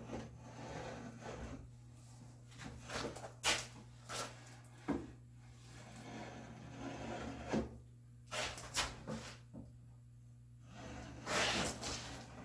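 Mortising gauge and hand tools being handled on a walnut board: several separate sharp wooden knocks and taps, then a longer scratching stroke near the end, over a steady low hum.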